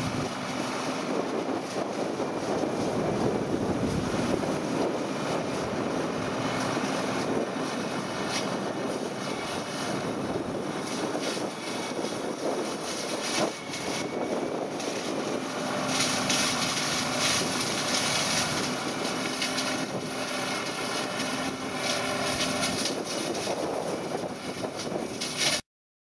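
Renault 155.54 Turbo tractor's diesel engine running steadily under load, driving a flail hedge-cutter that is cutting through a hedge: a continuous drone mixed with the thrash of the flails. The sound stops abruptly just before the end.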